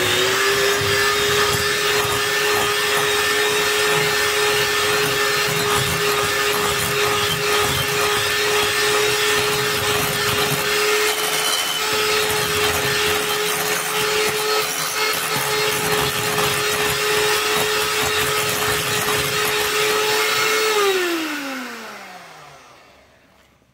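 Electric hand mixer running at a steady speed, its beaters creaming Greek yogurt and cream cheese. About twenty seconds in it is switched off, and its whine falls in pitch and fades as the motor spins down.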